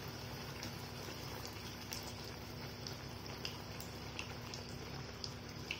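A bhatura deep-frying in hot oil in a kadai, the oil sizzling steadily with scattered small pops and crackles while it is pressed with a slotted spoon so that it puffs.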